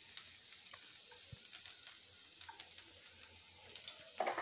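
Chopped garlic frying in a little hot oil in a kadai: a faint, steady sizzle with scattered light crackles. There is a brief louder sound near the end.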